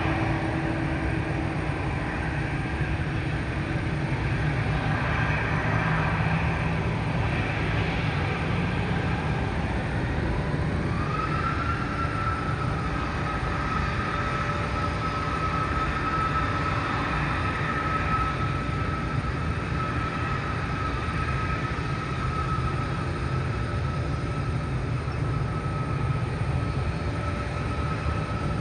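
An Airbus A320's jet engines at taxi power: a steady low rumble with a thin whine that rises about ten seconds in and then holds steady.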